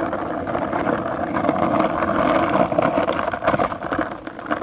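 Skateboard wheels rolling over rough ground: a steady rumble scattered with small clicks and knocks from bumps in the surface.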